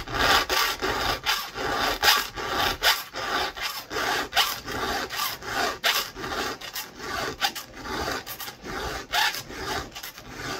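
Chainsaw chain being hand-filed with a round file: a steady run of quick rasping strokes of steel file on the cutters, about two to three a second.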